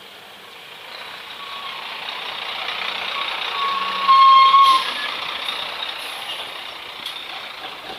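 Heavy road vehicle noise, a steady rushing hiss, with a single high beep-like tone held for about a second around the middle.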